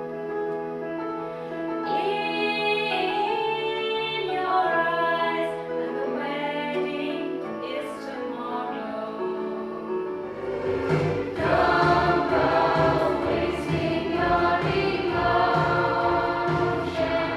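A stage cast singing together in chorus with musical accompaniment; about ten seconds in, bass and drums come in and the music gets fuller and louder.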